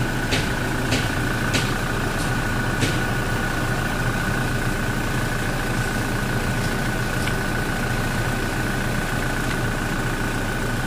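Toyota Innova engine idling steadily, with a thin steady high whine over it. A few sharp clicks come in the first three seconds.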